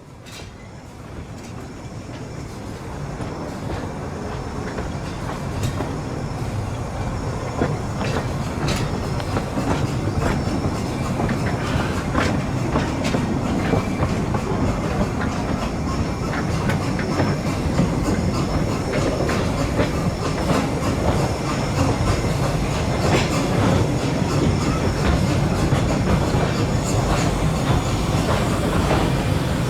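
Narrow-gauge railway carriage rolling along the track, a steady rumble with its wheels clicking and clattering over the rail joints. It fades in over the first few seconds.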